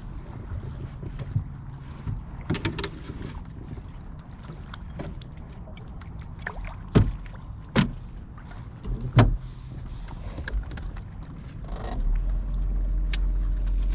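Knocks and bumps on a fishing boat's deck over a low rumble, with a few sharp ones near the middle, then a steady low motor hum that starts near the end.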